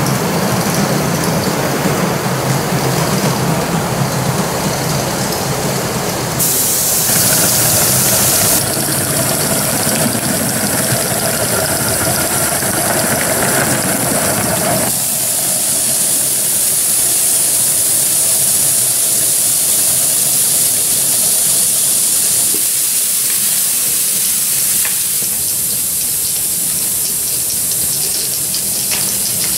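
Two live-steam gauge 1 Aster BR 86 tank locomotives running together, their steam hissing over the rumble of the wheels on the track. The hiss rises sharply for a couple of seconds about six seconds in. From about halfway through, a steady high hiss dominates and the wheel rumble is much quieter.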